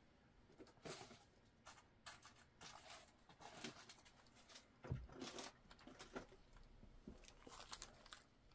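Faint, irregular small clicks and rustles of beads and their packets or containers being handled and sorted.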